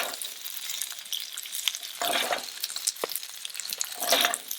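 Gyoza frying in oil in a hot frying pan: a steady sizzle with crackling, swelling louder twice.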